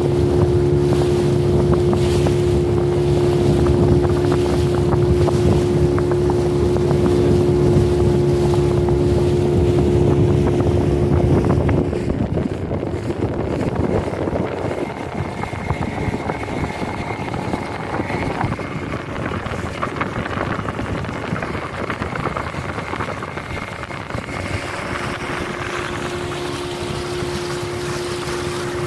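Motor boat engine running steadily over the rush of water and wind. About twelve seconds in the engine note falls away and the level drops, leaving mostly water and wind rush, and the engine note comes back a few seconds before the end.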